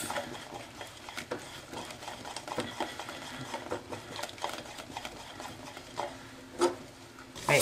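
Wooden spoon stirring a thick, sticky melted marshmallow mixture in a stainless steel pot: soft, irregular scrapes and light knocks of the spoon against the pot, with one sharper knock near the end.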